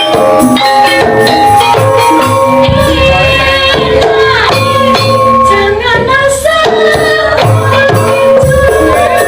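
Javanese gamelan ensemble playing, its metallophones ringing in steady tones over a rhythm of kendang drum strokes, with a young sinden's voice sliding between notes in the middle.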